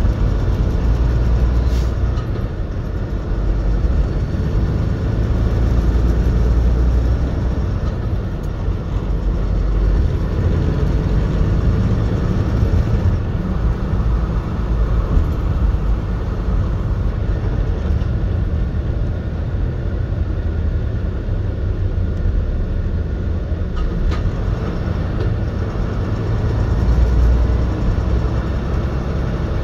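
Steady low drone of a truck's engine and tyres at highway speed, heard from inside the cab, rising and falling gently in level.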